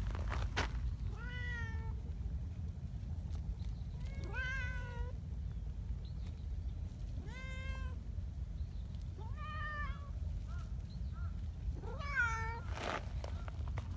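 Domestic cats meowing: five separate meows a couple of seconds apart, each about half a second to a second long, over a steady low rumble.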